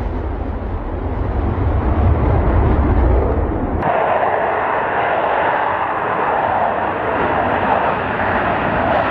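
Jet engines of a twin-engine Sukhoi Flanker-family fighter: a deep rumbling roar as it takes off, then, after a sudden cut about four seconds in, a steadier, higher jet roar with little bass as the fighter rolls along the runway.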